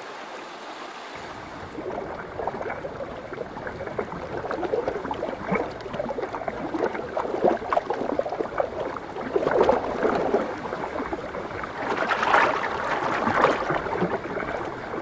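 Shallow river water churning and splashing as male sockeye salmon jostle one another on the spawning gravel, with irregular surges and gurgling. The loudest splashing comes about twelve seconds in.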